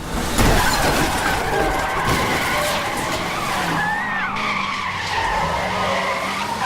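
Car tyres screeching in a long skid over running engines, starting suddenly about half a second in, with a high squeal that wavers in pitch.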